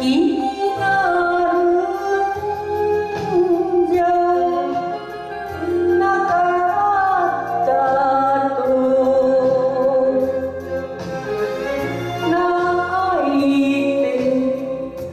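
A woman singing a Japanese song into a handheld microphone over instrumental accompaniment.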